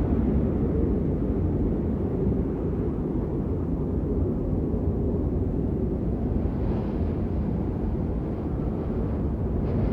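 Blizzard wind blowing steadily, a deep rumbling rush with a faint higher hiss swelling briefly about seven seconds in.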